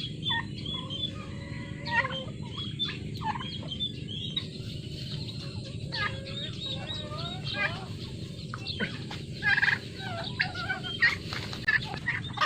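A large flock of domestic turkeys gobbling, with many short rippling calls overlapping continuously.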